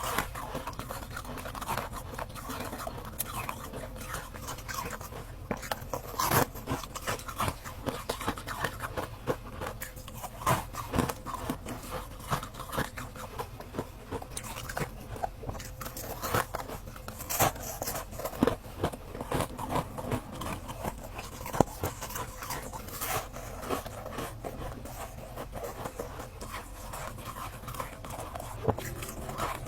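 Ice being bitten and crunched between the teeth: an irregular run of sharp cracks and crunches, several a second.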